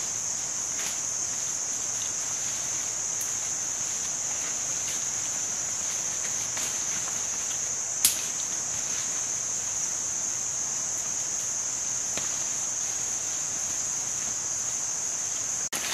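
Insects droning steadily at one high pitch, with faint rustling of undergrowth and a single sharp snap about eight seconds in.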